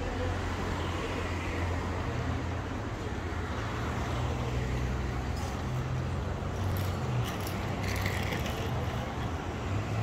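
Road traffic ambience: a steady low rumble of cars on a seafront road, with a few brief faint rattles or clicks about seven to eight seconds in.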